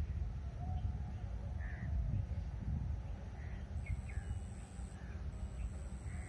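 Low, fluctuating rumble of wind on the phone microphone, with scattered short bird calls in the background. A thin, high steady whine comes in about four seconds in and briefly breaks off near five seconds.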